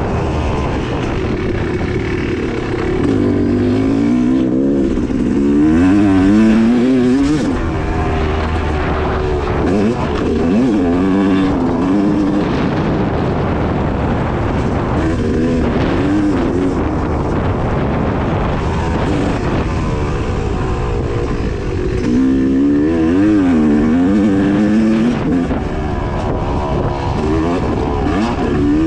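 2016 Yamaha YZ250X single-cylinder two-stroke dirt bike engine being ridden hard off-road, its revs rising and falling again and again as the throttle is worked, busiest about 4 to 7 seconds in and again about 22 to 26 seconds in.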